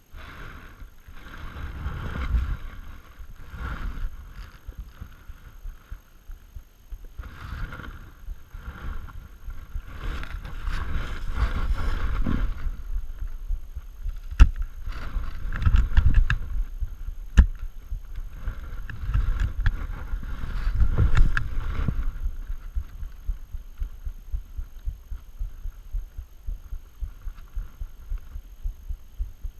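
Irregular rustling and low thumps of handling noise as a person moves about, with two sharp clicks a few seconds apart near the middle.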